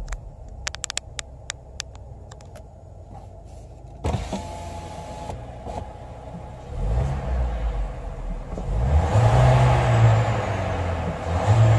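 2022 Škoda Kodiaq's turbocharged four-cylinder engine, heard from the driver's seat, revved in Park. The revs fall back to idle, then climb to about 3,400 rpm and drop, followed by a second, shorter blip near the end. A run of light clicks comes in the first couple of seconds, and a sudden knock about four seconds in.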